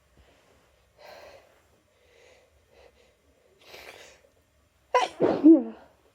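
A person with a cold taking a few faint, catching breaths, then sneezing loudly once near the end.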